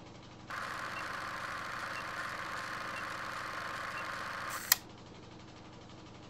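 A burst of hiss about four seconds long with a faint short beep once a second, cut off by a single sharp click; a low steady hum runs underneath.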